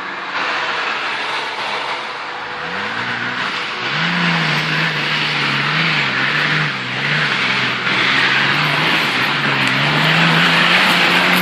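Nissan Patrol's turbocharged engine revving hard under load. Its pitch climbs a few seconds in, then holds high and wavers up and down, under a loud, broad rushing noise.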